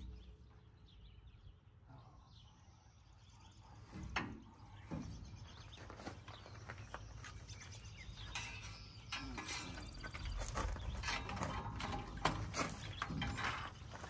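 Irregular small metallic clicks, knocks and rattles as the truck's exhaust pipe is handled under the rear axle. They start about four seconds in and come thicker and louder in the second half. No cutting tool is running.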